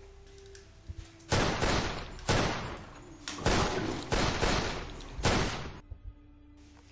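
A string of gunshots, several loud shots fired in quick, uneven succession for about four and a half seconds, each with a short ringing tail.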